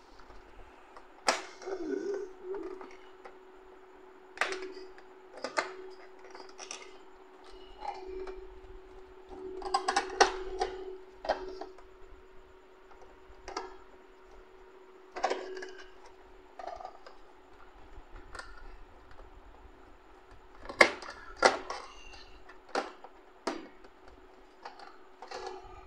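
Irregular plastic clicks and knocks from an inkjet printer's casing as it is handled and its cover panels are pressed and snapped back into place, over a steady faint hum.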